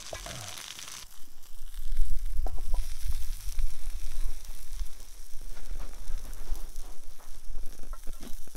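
Meat sizzling in a steel skillet over campfire coals. From about a second in, a loud low rumble joins it, with a few light clicks and knocks.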